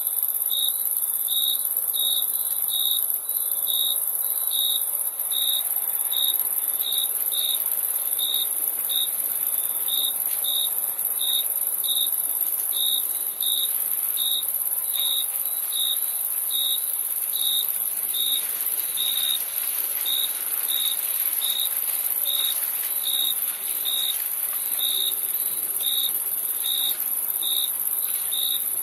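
Crickets chirping: a loud chirp repeats evenly about one and a half times a second, over a steady, very high-pitched insect trill.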